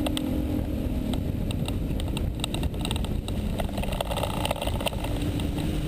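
Bass boat running across open water: its outboard motor drones steadily under a dense rush of wind and water noise, with irregular knocks and rattles.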